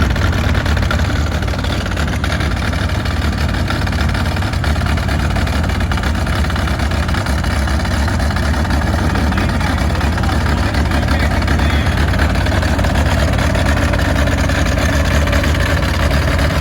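Sears and Roebuck Economy tractor's Model A Ford four-cylinder flathead engine running steadily.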